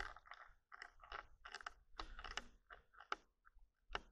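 Handling noise from a handheld camera being carried: faint, irregular crunching and clicking, several a second, with a sharper click near the end.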